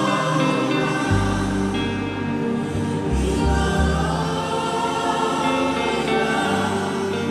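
Gospel worship song: a choir singing sustained notes over a band with held bass and keyboard chords.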